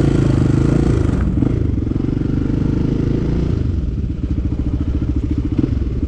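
Enduro motorcycle engine running; the revs ease off about a second in, and from about four seconds in it settles into an even, pulsing beat at low revs.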